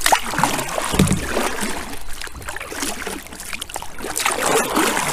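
Kayak paddling: the double-bladed paddle dipping and pulling through river water, with splashing and trickling water running off the blades, and one heavier thump about a second in.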